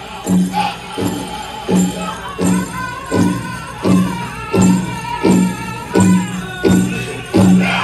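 Powwow drum group playing a dance song: a big drum struck in a steady beat, about three beats every two seconds, with the singers' voices joining about a second and a half in. Jingling bells, from the chicken dancers' leg bells, run through the beat.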